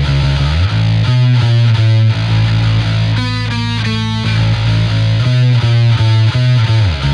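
Bass guitar playing alone, as an isolated bass track: held low notes broken by quick rhythmic picked passages, with a run of higher notes about three seconds in.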